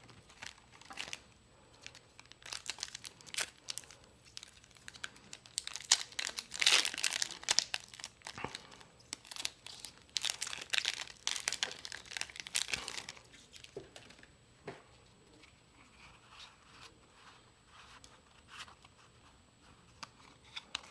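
Booster pack wrapper crinkling and tearing open, loudest in two stretches of a few seconds around the middle, with scattered light clicks and taps from cards being handled.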